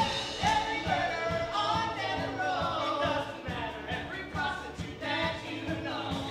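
Voices singing a musical theatre number over band accompaniment with a steady beat.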